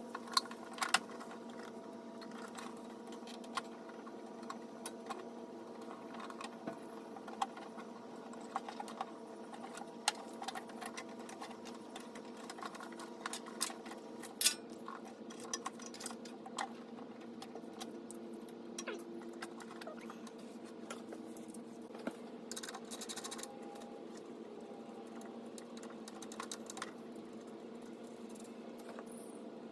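Irregular light clicks, taps and clatter of hands-on work, over a steady hum made of several held tones. A few sharper clicks stand out, about a second in and near the middle.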